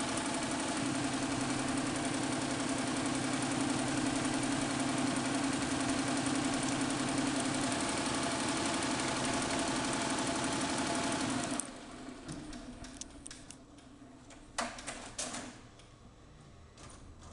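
Melco EMC 10/4T four-head, ten-needle embroidery machine stitching, a steady rapid mechanical clatter that stops abruptly about two-thirds of the way in. A few sharp clicks follow.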